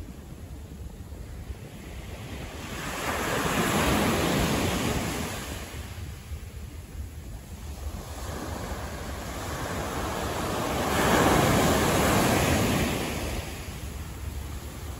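Road traffic passing: a whoosh of tyre and road noise swells up and fades away twice, about seven seconds apart, over a steady low rumble.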